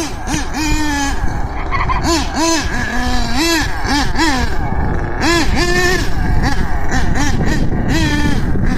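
Small two-stroke engine of a radio-controlled truck revving up and down in quick repeated bursts as the throttle is worked, with a rough rattle underneath.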